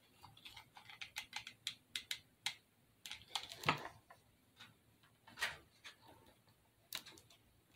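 Light, irregular clicks and taps of small craft decorations being handled and pressed into place on a fake-bake display, with a louder knock a little after three seconds in and a few scattered taps after it.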